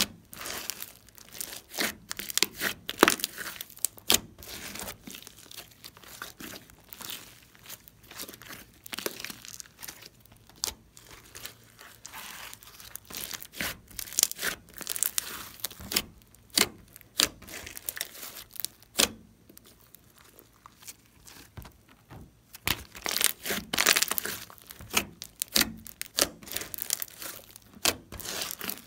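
Slime being squeezed and stretched by hand: an irregular run of sticky, crackling clicks and pops, thickening near the end.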